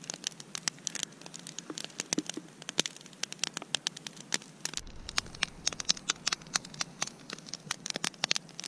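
Campfire crackling, with many sharp irregular pops and clicks, several a second.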